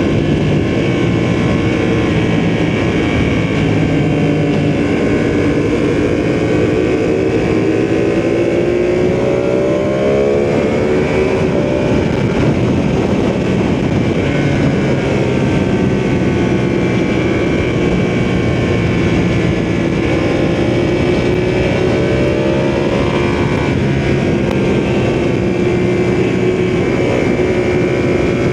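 Ducati sportbike engine heard from the rider's seat while riding: the revs climb steadily, fall away, climb again and then hold, with wind rush underneath.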